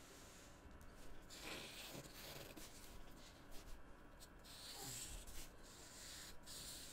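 Faint scratchy strokes of a felt-tip marker nib rubbing across paper as a page is coloured in.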